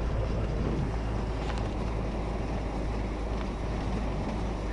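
Steady rumble of a moving train heard from aboard, with a few faint clicks and some wind noise.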